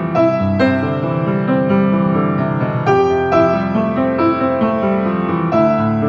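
Background piano music, single notes and chords struck one after another and left to ring.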